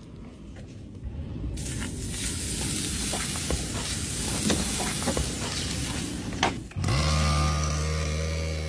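Raw steak sizzling on a hot go-kart exhaust pipe, a dense hiss with scattered pops that starts about a second and a half in. Near the end this gives way to the go-kart's engine running at a steady idle.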